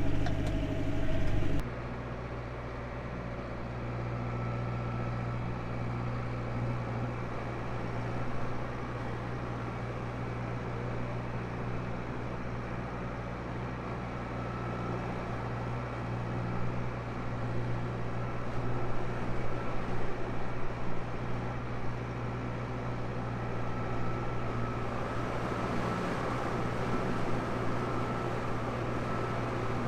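Tractor engine running at steady revs, a constant low drone. The sound changes abruptly and drops in level about two seconds in, then carries on unchanged with slight swells.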